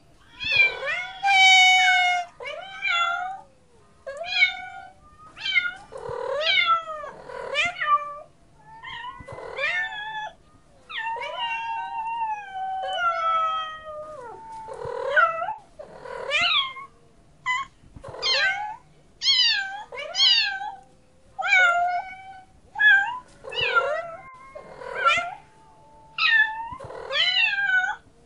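Domestic cat meowing over and over, roughly one call a second, some short and some drawn out and bending in pitch, with brief quiet gaps between them.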